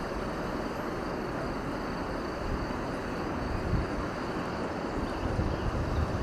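Outdoor ambience dominated by wind on the microphone: a steady rushing noise with irregular low rumbling gusts.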